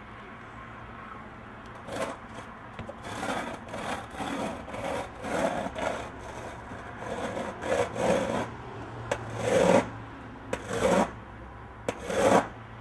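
Skateboard on concrete: a run of irregular scraping and rolling noises from the wheels and deck, starting about two seconds in, with the loudest scrapes near the end.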